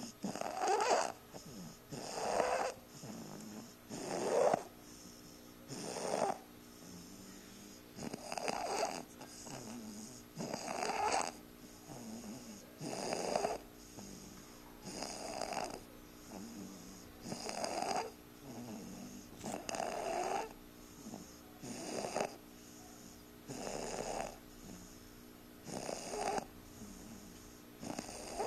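A three-month-old snoring steadily in its sleep, one snore about every two seconds, with quieter breathing in between.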